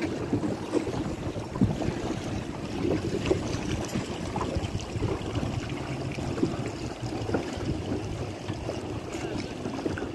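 Wind buffeting the microphone over choppy lake water, a steady low rumble with small irregular gusts and splashes.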